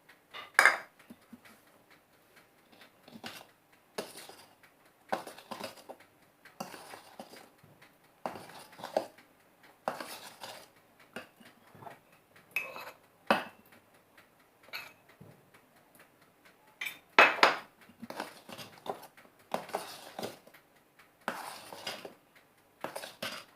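Steel spatula scraping and clinking against a mixing bowl while folding flour into cake batter, in short irregular strokes about once a second, with one louder clink about two-thirds of the way through.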